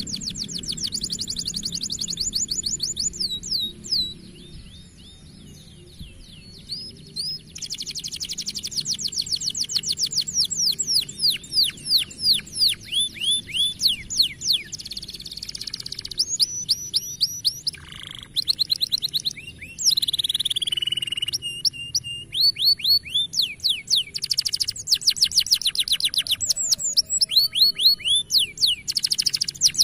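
Domestic canary singing: fast trills of repeated, quickly falling high notes, broken by a few short pauses, with a held, slightly falling whistle about two-thirds of the way through.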